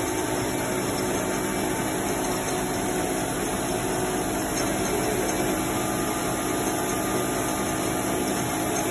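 Heidelberg paper folding machine running steadily: a constant mechanical hum with a steady whine from its motor, rollers and air pump.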